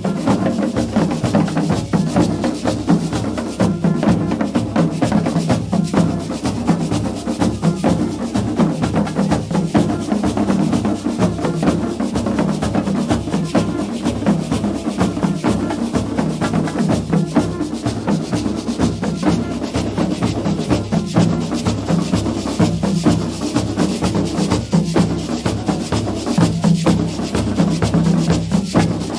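A Guadeloupean carnival drum band of many barrel-shaped skin drums, beaten with sticks. They play a dense, driving rhythm of sharp strikes without a break.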